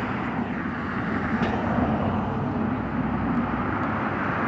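Strong snowstorm wind blowing across the microphone: a steady low rumbling rush with no breaks.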